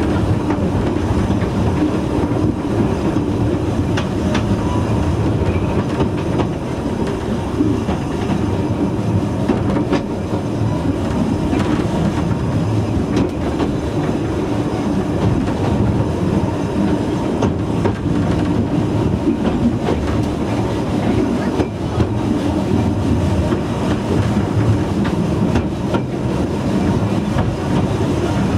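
Narrow-gauge railway coach running along the track at a steady speed: a continuous rumble of wheels and running gear, with frequent clicks of the wheels over rail joints.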